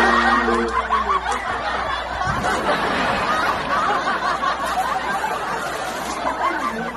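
Laughter from many overlapping voices, a dense giggling that cuts off abruptly near the end, with a brief steady tone at the start.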